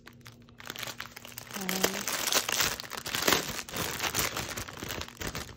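Thin clear plastic bag crinkling and crackling as a pack of diamond-painting drills inside it is handled and turned over, starting about half a second in.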